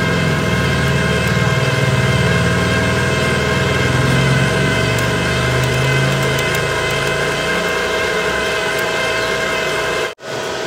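Steady hum of a MIG welder's wire-feed motor turning the drive roll and pushing flux-core wire through the torch. The sound cuts out briefly near the end.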